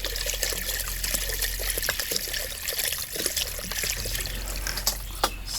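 Water being poured in a steady stream into a cooking pot, stopping near the end.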